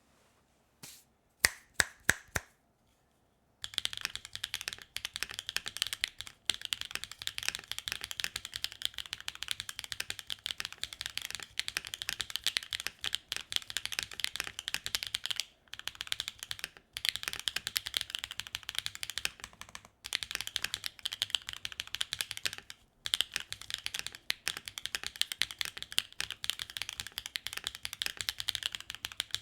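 Mechanical keyboard with Wingtree BM10 tactile switches on a carbon plate being typed on. A few separate keystrokes come first, then fast, continuous typing with a few short pauses.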